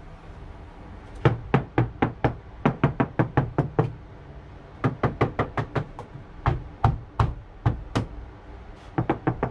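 A hand knocking on a Saturn Vue's rear liftgate trim panel, which is lined with carpet padding as sound deadener. The knocks come in quick runs of several, about four or five a second, with short pauses between runs. The owner hears them as a lot quieter with the padding in place.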